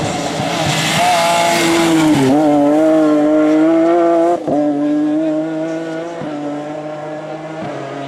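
BMW 3 Series rally car's engine running hard as the car goes through a bend and pulls away. The note breaks off briefly several times at gear changes, once sharply about halfway through, and grows quieter toward the end.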